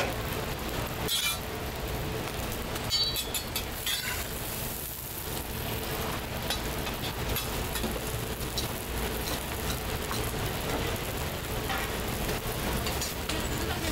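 Scallion pancakes sizzling in oil on a hot griddle, a steady frying hiss, with short clinks about a second in and again around three to four seconds in.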